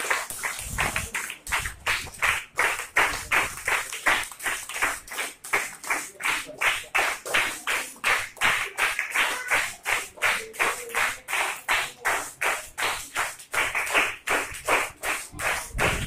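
A group of children clapping in unison in a steady rhythm, about three to four claps a second.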